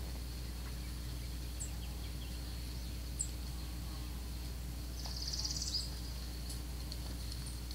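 Forest ambience: a steady low hum under a thin, steady high drone like insects, with two tiny high chirps and a short buzzy, rasping call about five seconds in.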